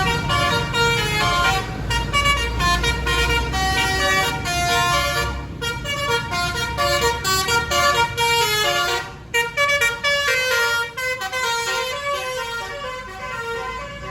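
Bus basuri horn, a multi-trumpet musical horn, playing a fast melodic tune of short notes, with a low rumble underneath for the first few seconds.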